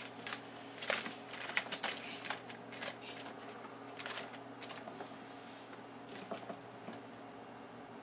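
A squirrel scrabbling among boxes and bottles on a refrigerator door shelf: quick clicks, scratches and rustles of its claws on plastic and cardboard. They come thick in the first three seconds, then only now and then.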